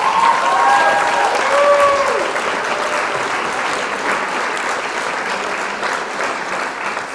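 Steady rain falling, an even hiss, with a few thin whistling tones in the first two seconds.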